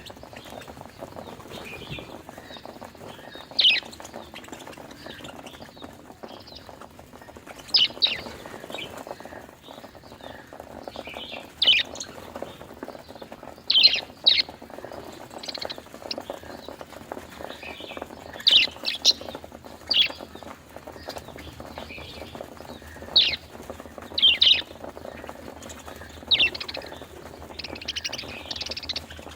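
Budgerigars chirping: loud, sharp chirps every few seconds, each a quick falling note, some in pairs, over soft continuous chatter.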